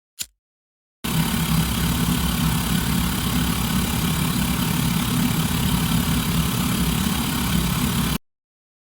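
A spin transition sound effect: after a brief tick, a steady spinning whir with a strong low rumble starts about a second in, holds for about seven seconds and cuts off suddenly.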